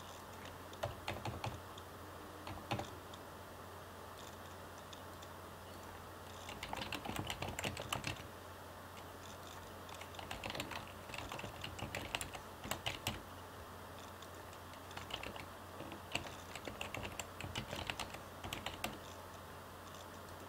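Computer keyboard typing in several short bursts with pauses between, over a low steady hum.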